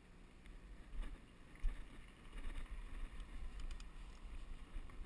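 Mountain bike riding on a dirt and gravel trail: tyres crunching over the ground and wind rumbling on the microphone, with a few sharp knocks and rattles from bumps.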